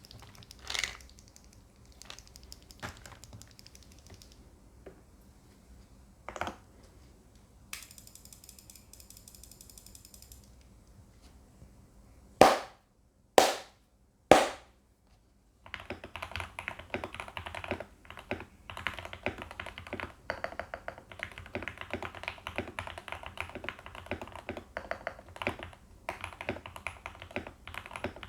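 VL84 mechanical keyboard with factory-lubed Gateron Pro Yellow linear switches, foam-modded, with PBT keycaps: a few single keystrokes, then three loud separate clacks about halfway through, then steady fast typing for the second half.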